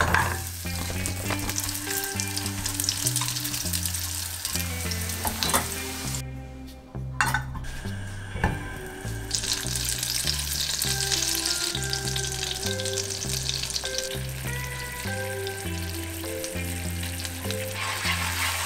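Food frying in a nonstick pan: breaded chicken nuggets sizzling in oil, then, from about halfway, butter melting and sizzling more strongly as it is pushed around with a wooden spatula, with a few light knocks against the pan.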